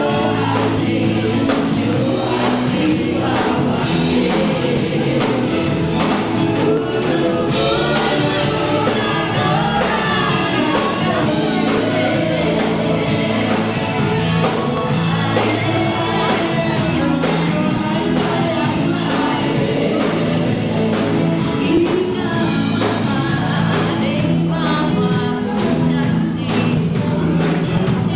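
Live band playing with several voices singing together.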